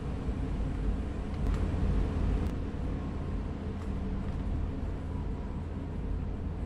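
Steady low hum of a room air conditioner, with a few faint ticks as a pencil marks brace positions on a guitar top through a template.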